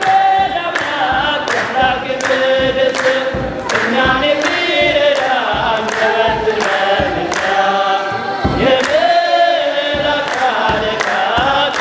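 A choir sings an Ethiopian Orthodox mezmur (hymn) together, with a steady beat of sharp strikes about twice a second.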